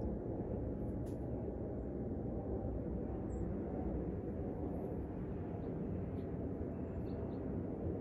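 Steady low outdoor rumble, with a few faint short high ticks in the second half.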